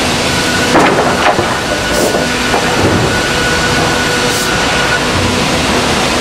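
Industrial wood-processing machine cutting a squared timber beam as it feeds through. The machine runs with a steady hum and a thin whine, with a few louder crackles of wood being cut, the strongest about a second in.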